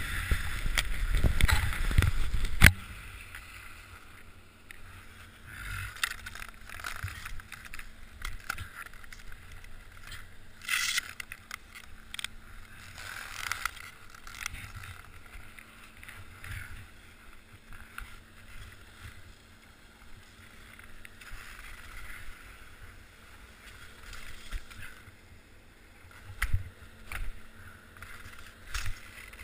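Muffled rush of wind and skis carving snow, picked up by a helmet-mounted GoPro at speed, cutting off abruptly about three seconds in. After that, quieter scattered scraping and shuffling of skis on snow.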